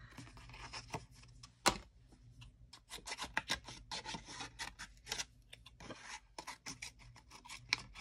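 Scissors snipping through thick cardstock of about 280 gsm in a quick irregular series of short crisp cuts, with the card rustling and rubbing as it is handled. One sharper click comes about a second and a half in.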